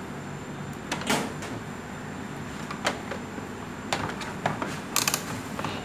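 Short plastic clicks and knocks from an analog multimeter and its test leads being handled against a washing machine's plastic top console, a handful of them with a quick cluster near the end, over steady background noise.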